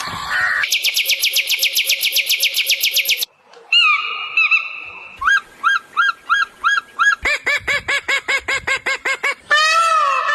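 Bird calls in several abruptly joined stretches: a fast run of repeated high calls, then spaced chirps, then another rapid string of calls, and near the end a repeating pattern of falling whistles.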